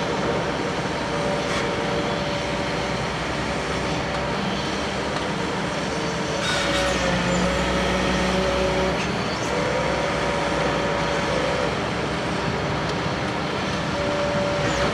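Heavy diesel construction machinery running steadily, with a whine that breaks off and resumes and a few sharp knocks, the clearest about six and a half seconds in.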